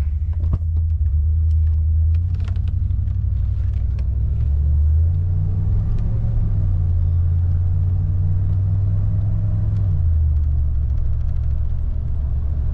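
Ford van's engine and drivetrain running under way, heard from inside the cab as a steady low drone mixed with road rumble that shifts in pitch a few times.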